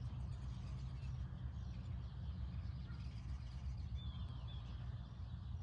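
Outdoor ambience: a steady low rumble with a few faint, short bird chirps about four seconds in.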